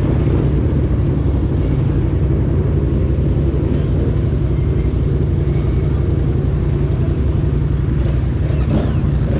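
Yamaha MT-07's parallel-twin engine pulling at steady revs on the move, an even low rumble with no big changes in pitch.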